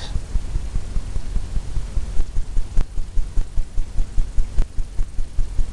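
Fan brush tapped repeatedly against a stretched canvas, giving a run of low, even thumps at about three to four a second.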